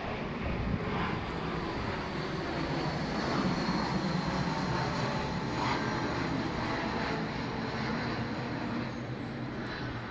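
Engine rumble of something passing, swelling to its loudest around the middle and fading near the end.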